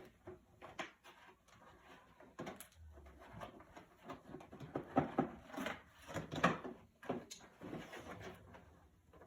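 A box of firework artillery shells being pried open by hand, with irregular rustling, scraping and knocks of the packaging. The loudest knocks come about five seconds in and again about six and a half seconds in.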